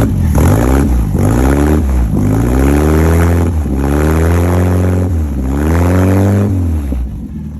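Volkswagen Beetle's air-cooled flat-four engine, a 2.0 build, revved four times through a new muffler, each rev rising in pitch and falling back, then settling toward idle near the end.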